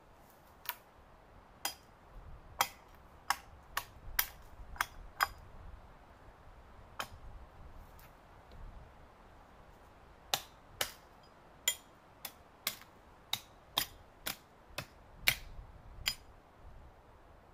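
Sharp, crisp knocks and cracks of dry wood as a dead pine pole is trimmed by hand with a small hatchet. They come irregularly, about one or two a second, in two runs with a pause of a few seconds between; the loudest is near the end.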